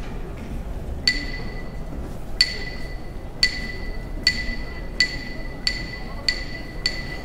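Hyoshigi, sumo's wooden clappers, struck together in single sharp ringing claps that come faster and faster. There are about nine claps, with the gaps shrinking from over a second to under half a second.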